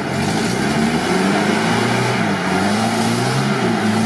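UAZ off-roader's engine revving under heavy load as it drives through a deep mud pit, its pitch rising and falling with the throttle.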